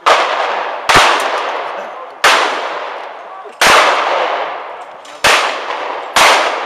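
Shotgun shots at clay targets: six sharp reports about one to one and a half seconds apart, each trailing off in a long echo.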